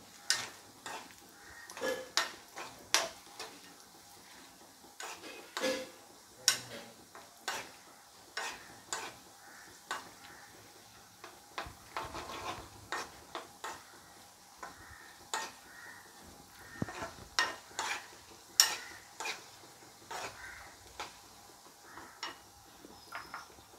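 Cashews frying in ghee in a pan, stirred with a spatula: irregular scrapes and taps of the spatula against the pan over a faint sizzle.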